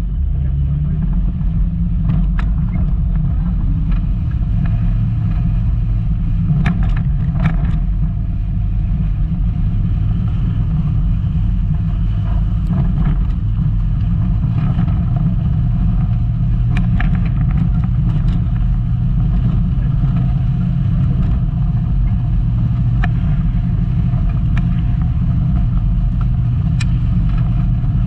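Volkswagen Golf Mk2 driving off-road, its engine running at a steady pitch, with short sharp knocks and clicks every few seconds from the car jolting over rough ground.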